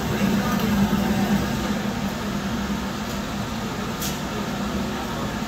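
Steady roar and hum of a glass studio's gas-fired furnace and its blower, with one brief tick about four seconds in.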